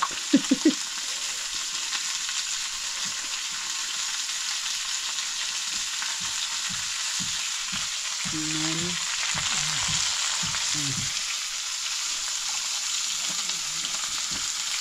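Meat frying in a wok, a steady sizzling hiss.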